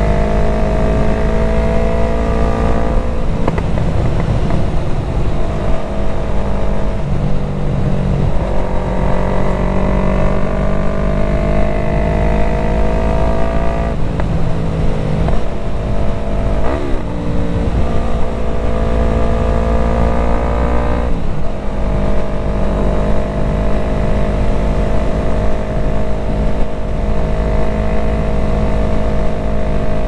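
2020 Yamaha MT-03's 321 cc parallel-twin engine running under way at road speed. Its pitch climbs slowly, dips and changes several times as the throttle varies, then holds steady near the end, over a low wind rush.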